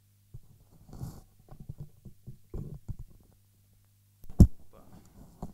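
Microphone handling noise: soft rustles and knocks, with one sharp, loud thump about four and a half seconds in, over a steady low electrical hum.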